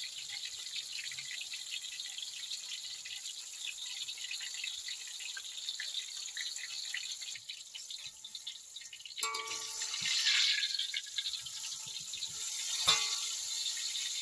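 Banana fritters sizzling and crackling in hot oil in a wok. About ten seconds in a spatula works the fritters and the sizzle swells, and near the end the spatula knocks once against the wok.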